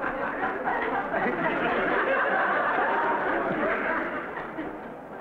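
Many voices at once: a murmur of chatter mixed with chuckling, which dies away near the end.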